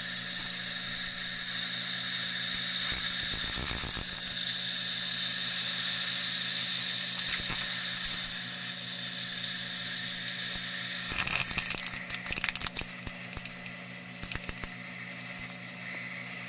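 Pulse motor spinning a quarter-inch neodymium magnet at high speed inside a 12-point Star-Challis coil: a high whine that climbs in pitch, dips briefly about eight seconds in, then climbs again. About eleven seconds in comes a short spell of rattling and clicking, with a steady low hum underneath throughout.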